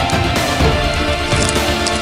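Tense background film score: held tones over a steady low beat.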